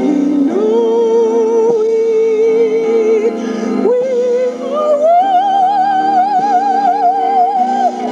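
Music: a woman's singing voice holding two long notes with wide vibrato over accompaniment, the second note higher, starting about five seconds in and ending just before the end.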